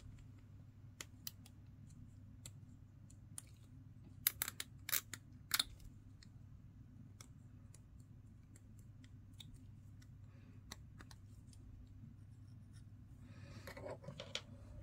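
Hobby knife blade scraping and shaving the edges of a small plastic miniature part: a series of faint scratchy clicks, with a cluster of louder ones about four to six seconds in. A brief soft rustle near the end.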